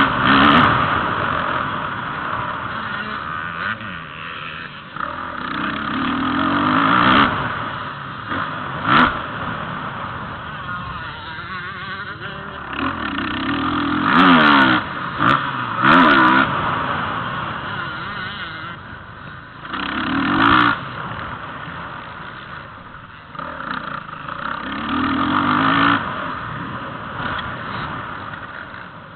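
Motocross bike engine heard from an onboard camera, revving up and dropping off again and again as it goes through the gears, with rough wind noise on the microphone. A few sharp knocks stand out, the loudest around the middle.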